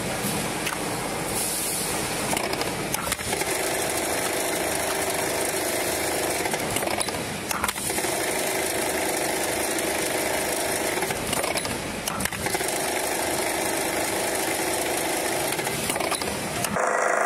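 Automatic flap disc making machine running: a dense, steady mechanical noise with sharp clicks here and there, the pattern repeating roughly every four and a half seconds as the machine cycles.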